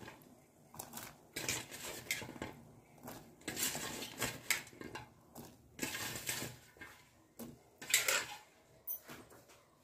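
Cauliflower florets dropped by hand into a steel pot of water: a string of irregular light splashes, knocks and clinks against the pot.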